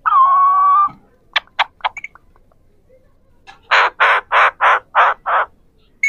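Alexandrine parakeets calling: one drawn-out, wavering call for about a second, a few short sharp chirps, then a run of six harsh squawks at about three a second.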